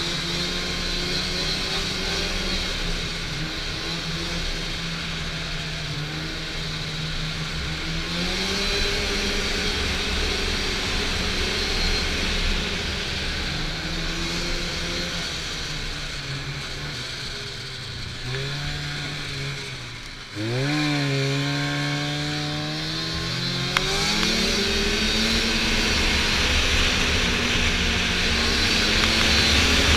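Snowmobile engine running while riding, its pitch rising and falling with the throttle. About two-thirds through the engine eases off and drops, then opens up again sharply and climbs.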